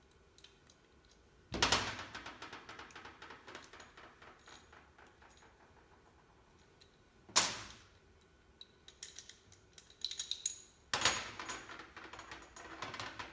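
Metal hand tool and PEX pipe fittings being handled: a clatter followed by a run of small clicks, a single sharp knock about seven seconds in, then more clicking and a second clatter near the end.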